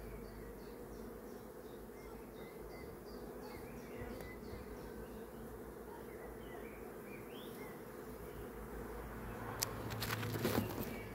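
Swarm of honeybees buzzing steadily around an open hive, with single bees flying close past the microphone. Near the end a few sharp clicks and knocks of wooden hive frames being handled.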